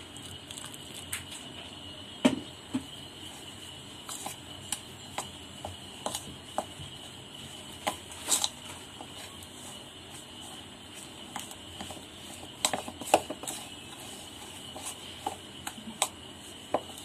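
Rice flour and hot water being mixed into dough in a bowl, first with a spoon and then by hand: scattered light clicks and taps with soft scraping.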